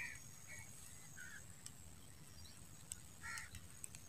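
Quiet outdoor ambience: a few short animal calls, one at the start, two soon after and another about three seconds in, over a faint steady high insect drone.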